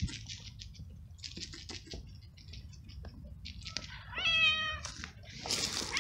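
A young tabby kitten gives one loud meow, slightly falling in pitch, a little after halfway, with light taps before it and a short rustling noise near the end.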